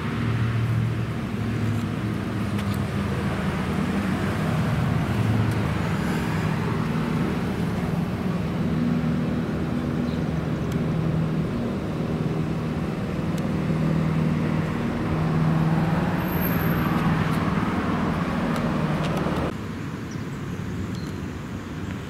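Car engine and road noise, running steadily with the engine note shifting up and down; the level drops suddenly near the end.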